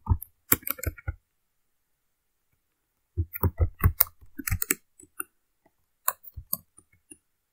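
Computer keyboard typing: a quick run of keystrokes, a pause of about two seconds, then another quick run and a few scattered key presses near the end.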